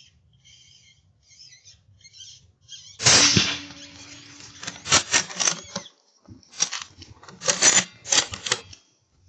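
Short, high squeaks repeated two or three times a second from a hand or mouth squeaker used to call foxes, imitating distressed prey. About three seconds in comes one loud report, a rifle shot, followed by bursts of clicking and handling noise.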